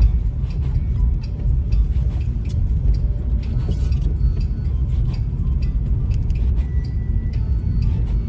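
Steady low rumble of a car being driven on a snowy road, heard from inside the cabin, with scattered faint clicks.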